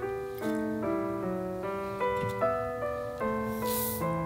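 Background piano music: a light melody of short, separate notes.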